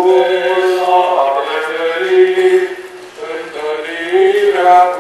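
Eastern Orthodox liturgical chant: voices singing slow, long held notes that move from pitch to pitch.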